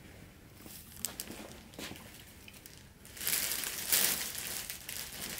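Cotton shorts being handled: a few light taps in the first two seconds, then the fabric rustles more loudly from about three seconds in as it is turned over and shown.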